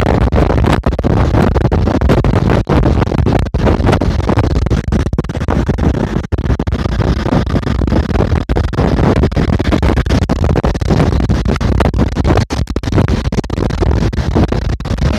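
Loud rushing wind and road noise from a moving bus, buffeting the microphone and distorting it, with many brief dropouts.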